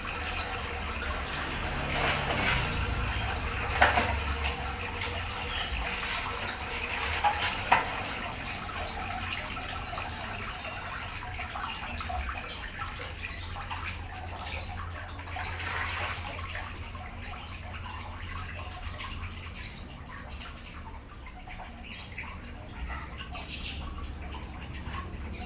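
Water running and splashing steadily as a submersible pond pump is tried out after cleaning, with a low steady hum underneath. A couple of sharp knocks come about 4 and 8 seconds in.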